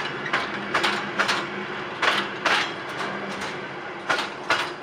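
Wheels of a slowly passing heritage passenger train clacking over a rail joint, in pairs of sharp clacks about a second apart as each bogie's two axles cross it, over the steady rumble of the rolling coaches.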